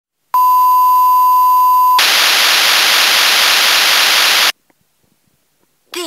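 A steady electronic test beep for about a second and a half, then a loud hiss of noise for about two and a half seconds that cuts off suddenly: test signals from the 2007 LeapFrog Fridge Talk toy's test mode.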